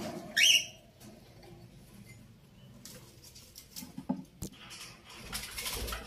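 A rose-ringed (Indian ringneck) parakeet gives one short, loud call about half a second in. Scattered knocks and rustles follow.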